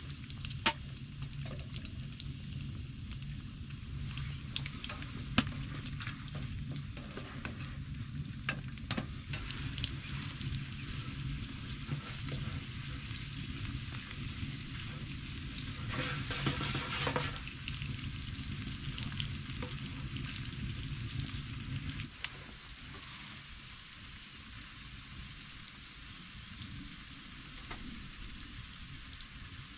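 Food sizzling in a pan on a wood stove, with light clicks and scrapes of a utensil stirring it and a louder scraping stretch a little past the middle. A low background rumble cuts off suddenly about three-quarters of the way through.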